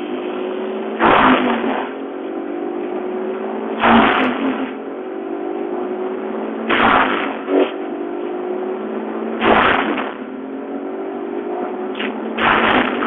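Bandit 3590XL whole-tree chipper at work: the engine's pitch climbs steadily, broken about every three seconds by a loud crunching burst as timber is fed in and shredded, five times in all.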